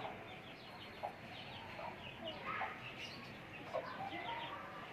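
Aseel chicks peeping busily, many short falling cheeps overlapping, with an adult chicken clucking now and then among them.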